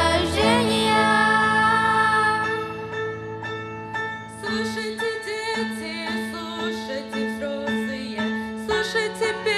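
Women's voices hold the last note of a sung phrase over piano, fading out about two and a half seconds in; a grand piano then plays an interlude alone.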